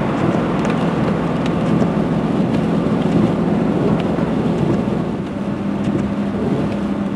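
Chevy Silverado pickup driving on a snow-covered road, heard from inside the cab: a steady engine hum over dense, rumbling road noise.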